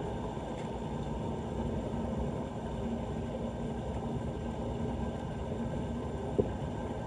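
Steady low rushing rumble of floodwater draining into a street drain, with one sharp click about six seconds in.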